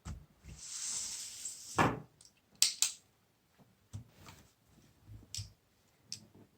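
Scattered small clicks and taps of needle-nose pliers handling paper-clip wire, with a soft hiss lasting over a second near the start.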